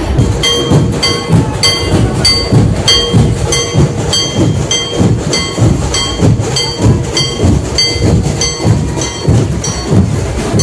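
Procession drum band playing a steady, fast rhythm: low drum beats with a ringing metal percussion strike about two and a half times a second.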